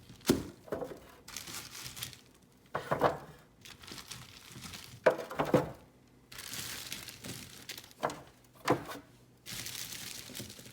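Handling sweet potatoes for weighing: crinkling and rustling of a bag or wrapping, with a few sharp knocks as the potatoes are put in.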